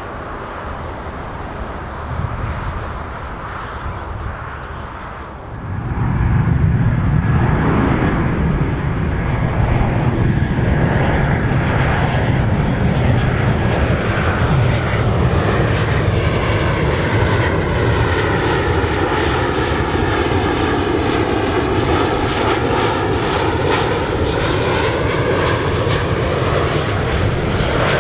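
Airliner engines on final approach as the plane passes low overhead to land. The engine noise comes in suddenly about six seconds in and holds loud, with a sweeping whoosh through the second half as it goes over.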